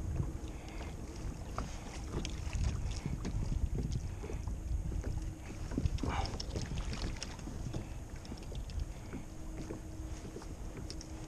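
Wind buffeting the microphone and choppy water lapping against a plastic fishing kayak's hull, with scattered small clicks and knocks of handling. A brief rasping sound comes about six seconds in.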